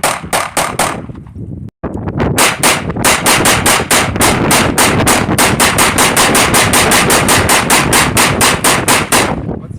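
Rapid gunfire from a firearm at a shooting range. A quick string of shots comes first, then after a brief cut a long, even string of shots at about five or six a second, which stops near the end.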